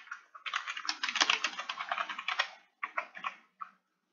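Computer keyboard typing: a fast, dense run of keystrokes lasting about two seconds, then a few separate key presses.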